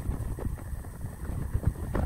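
Wooden blocks knocking and sliding on a plywood tabletop as they are set in place against a metal square: a few light wooden knocks over a steady low rumble.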